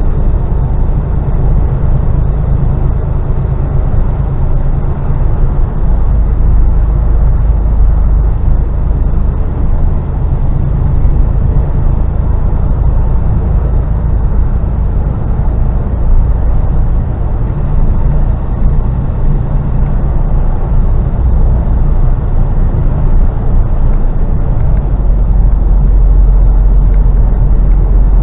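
Mercedes Actros lorry on the move, heard from inside the cab: a steady low rumble of engine and road noise, getting a little louder near the end.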